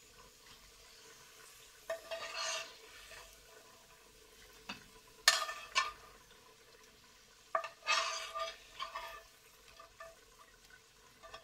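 A metal slotted spatula scrapes through a pan of hot frying oil, lifting fried potato chips out onto a platter, with a light sizzle of the oil. There are several short bursts of scraping, and two sharp clinks of the spatula against the pan about halfway through are the loudest sounds.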